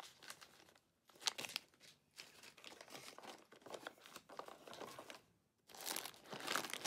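Plastic snack wrappers crinkling as candy packets are handled and shuffled, in irregular spells with brief pauses about a second in and again near the end.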